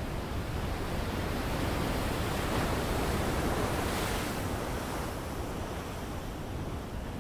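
Ocean surf: a wash of noise that builds, peaks about three to four seconds in, and slowly falls away, like a wave surging in and receding.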